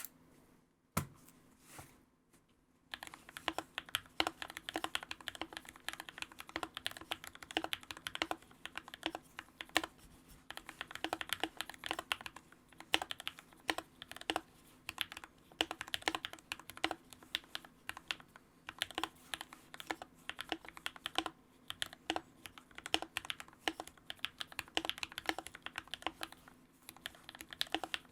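Typing on a Keychron K6 65% mechanical keyboard with an aluminium frame, case foam, lubed Kinetic Labs Hippo linear switches and Hippo PBT keycaps. A few single key presses come first, then steady, fast typing from about three seconds in, with a brief pause near the end.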